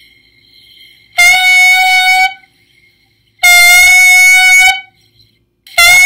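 Clarinet mouthpiece and barrel blown on its own. A faint, thin, high tone comes first, then three full, steady, reedy notes of about a second each on one pitch. The full notes come once the too-tight bite on the reed is eased a little.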